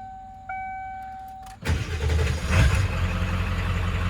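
The truck's dashboard chime dings twice, then the Ford 7.3 L V8 diesel starts at once, about halfway through, and settles into a steady idle.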